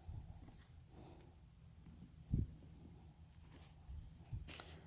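Insects trilling very high-pitched outdoors, in on-off stretches of about a second each, with a couple of soft low thumps from hands working in potting soil.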